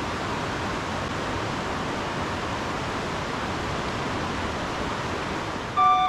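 Steady rushing of a mountain headwater stream, an even hiss of running water; music starts just before the end.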